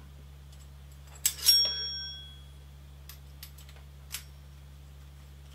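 A sharp metal-on-metal clink about a second in, ringing briefly with a few clear tones, as metal parts of a pulley-and-shaft assembly knock together. A few faint ticks follow as the parts are handled.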